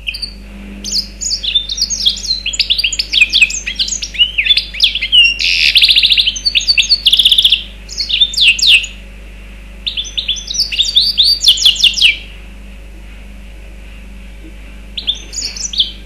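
Mozambique serin × canary hybrid (a mule) singing long, fast phrases of high chirps and rapid trills, with two short breaks. After a pause of a few seconds it gives a brief phrase near the end.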